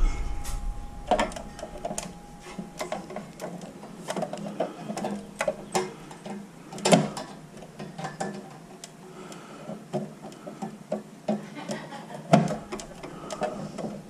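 Screws being worked out of a garage door opener's housing by hand: irregular light clicks, taps and scrapes of the tool and parts, with louder knocks about a second in, about halfway and near the end.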